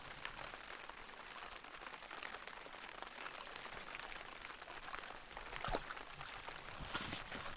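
Light rain: a faint steady hiss with scattered drops ticking, and a few sharper ticks near the end.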